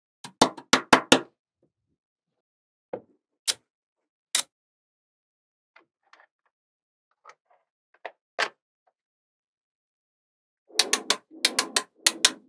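Small magnet balls clicking as they snap together. A quick run of clicks, then a few single clicks with gaps between them, then another quick run near the end.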